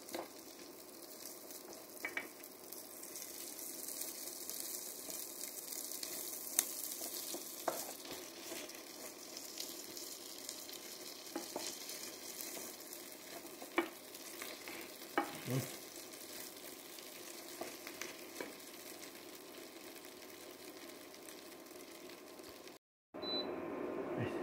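Chopped onion, carrot, celery, parsnip and garlic sizzling in oil in a frying pan, stirred with a wooden spoon that knocks against the pan now and then.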